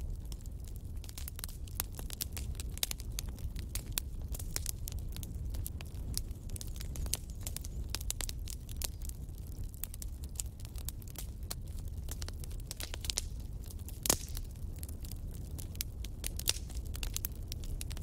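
Wood fire in a fireplace crackling, with frequent sharp pops over a low, steady rumble. The loudest pop comes about fourteen seconds in.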